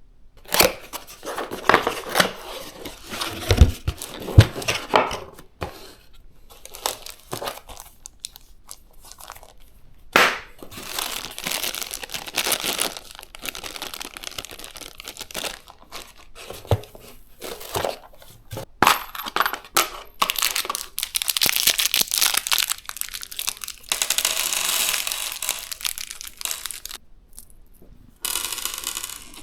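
Packaging being handled and opened: plastic and paper crinkling and tearing in long rustling stretches, with scattered knocks of parts being handled.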